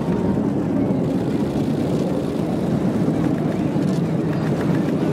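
Propeller aircraft engines droning steadily overhead: the turboprops of an Airbus A400M and the small propeller trainers flying with it.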